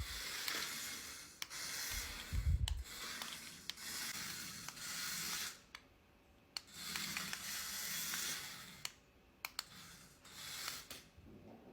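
Remote control toy mouse running in several bursts of one to two seconds with short pauses between, a scraping whir, with a couple of low thumps in the first few seconds.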